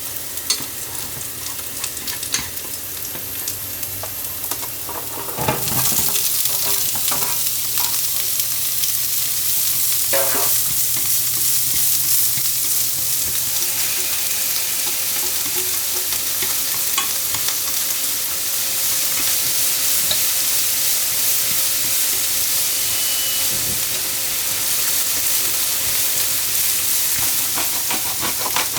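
Food sizzling as it fries in a pan while being stirred, with frequent light ticks of the utensil against the pan. The sizzle gets louder about five and a half seconds in.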